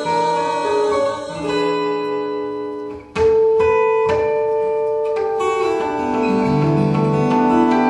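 Steel-string acoustic guitar played fingerstyle, with notes left to ring. Just before three seconds in it dips briefly, then a strongly plucked new chord rings out.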